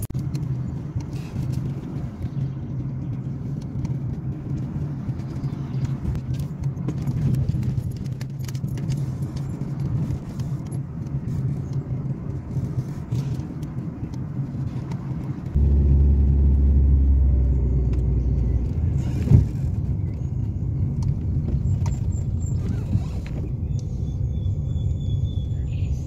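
A car's engine and tyres running at road speed, heard from inside the cabin as a steady low rumble with a faint engine hum and scattered small clicks. The rumble deepens and grows louder for about three seconds just past the middle, and a single knock follows.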